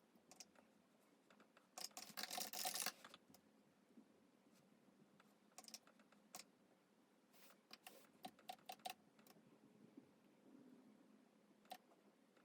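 Typing on a Logitech MX Mechanical keyboard with red linear switches: a quick run of keystrokes about two seconds in, then scattered single key presses.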